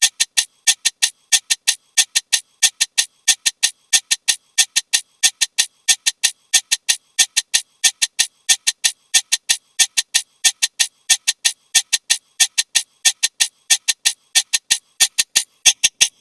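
A rapid, steady train of sharp clicks, about five a second, a looped sound effect.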